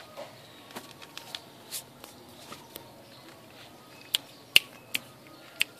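Cats eating from a plate: irregular sharp clicks and smacks of chewing and lapping. A few louder clicks come in the second half.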